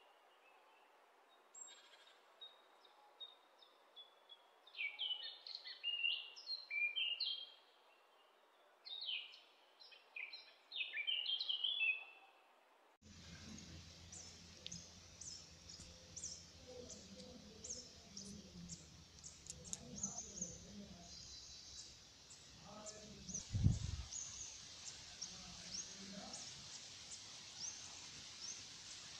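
Small birds chirping in quick bursts of rising and falling notes. Then, after a sudden cut, comes an outdoor background of steady high chirping with faint soft sounds of a kitten gnawing kernels off a corn cob, and a single thump late on.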